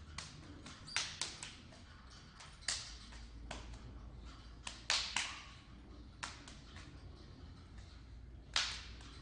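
Sharp open-hand slaps and taps on bare skin, irregular, about a dozen, the loudest about a second in, around five seconds in, and near the end.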